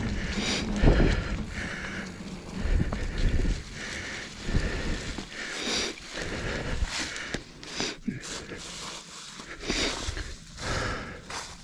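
Commencal Meta HT hardtail mountain bike rolling along a dirt trail covered in dry fallen leaves: the tyres crunch through the leaves and the bike rattles, coming in irregular bursts.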